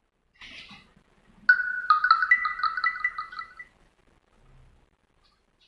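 A short noise, then a two-second electronic alert melody of quick, repeated ringtone-like notes.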